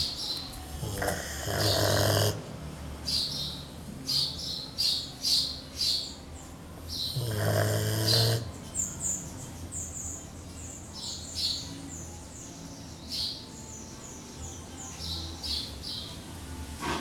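Rottweiler snoring in her sleep: two long snores, each about a second and a half, about a second in and again about seven seconds in, with a low hum of quieter breathing between. Small birds chirp throughout.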